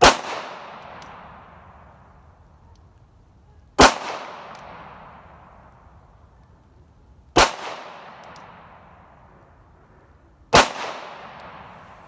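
Four slow, aimed shots from a Glock 19 9mm pistol, about three to four seconds apart. Each is a sharp crack followed by an echo that dies away over a second or two.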